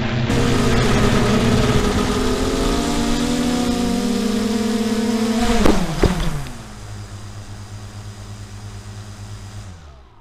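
FPV quadcopter's motors whining in flight, their pitch shifting up and down as the throttle changes. Then the quad crashes into the ground, with two sharp impacts about five and a half and six seconds in, and the motor pitch drops. A lower hum carries on after the crash and fades out near the end.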